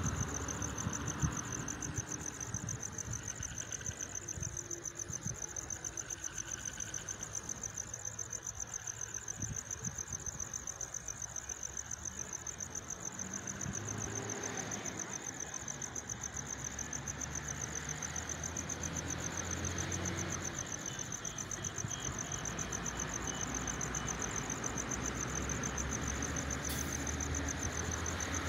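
Night insect chorus: a steady, high-pitched, rapidly pulsing trill, with a low rumble underneath that swells and fades.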